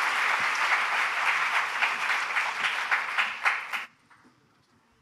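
Audience applauding, thinning to a few scattered claps and dying away a little under four seconds in.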